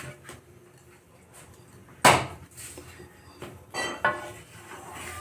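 A metal utensil knocking and clinking against a metal cooking pan of simmering curry. There is one sharp knock about two seconds in, then a few ringing clinks near the end.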